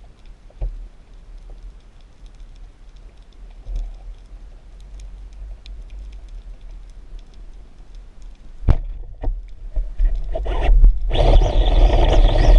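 Underwater ambience: faint scattered crackling ticks over a low rumble, with one sharp knock about three-quarters of the way in and a few smaller knocks after it. Loud music with distorted guitar starts near the end.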